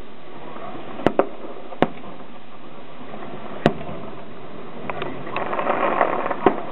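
Aerial fireworks shells bursting overhead: single sharp bangs about a second in, again just after, near two seconds and past three and a half seconds, then a rougher, denser patch of noise in the last two seconds with another bang near the end.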